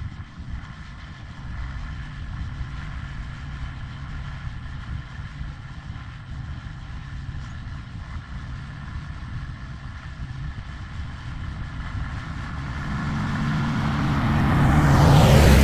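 A tractor engine running steadily, growing louder as it approaches and passing close by near the end.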